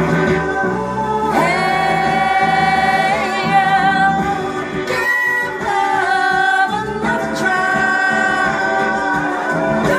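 A woman singing long, drawn-out notes, some with a wavering vibrato, with music playing behind her.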